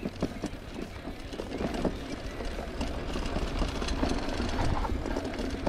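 Mountain bike rolling fast down a dirt trail, its tyres running over packed dirt and the bike rattling and clicking over bumps. A steady low rumble of wind sits on the handlebar camera's microphone.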